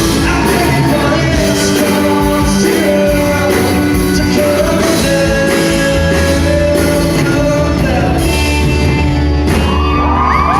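Live rock song played by a band with a lead singer, loud and steady. Near the end the crowd starts whooping and cheering over the music.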